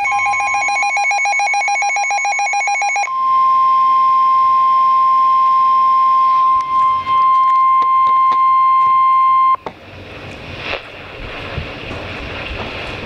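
NOAA Weather Radio warning alarm tone: a single steady electronic tone, with rapid pulsing tones over it for about the first three seconds, then alone and louder. It cuts off suddenly near ten seconds, leaving a fainter radio hiss.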